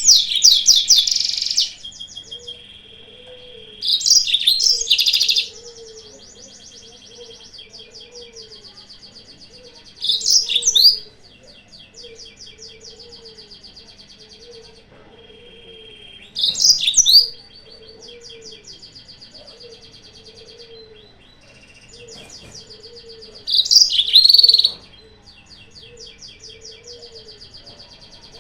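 Yellow-fronted canary (Mozambique canary) song: loud, bright phrases about every six seconds, with a softer rapid twittering trill running between them.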